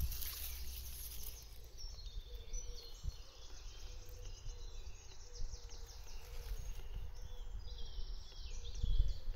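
Small birds chirping and singing in short, high calls, over a low rumble of wind on the microphone.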